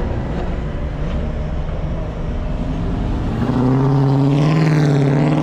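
Car engines rumbling, then about three and a half seconds in one engine gets louder, with a strong note that rises a little in pitch and then holds as the car accelerates.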